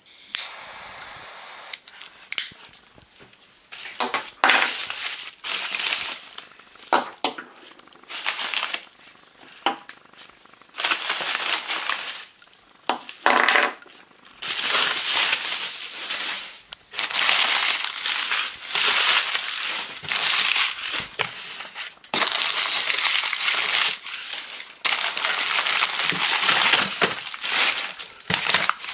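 Bubble wrap and white packing paper crumpling and crinkling as they are handled in a cardboard box, in irregular bursts with short pauses between them.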